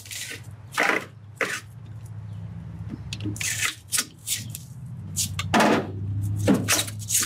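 A blue plastic-cased battery cell being pried and worked up out of a tightly packed battery box with screwdrivers: a series of irregular scrapes and clicks of plastic against plastic and metal. A low steady hum runs underneath.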